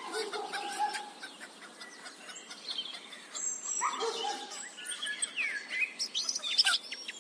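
Farmyard morning ambience: songbirds chirping and whistling throughout, with a few hen clucks near the start and about four seconds in.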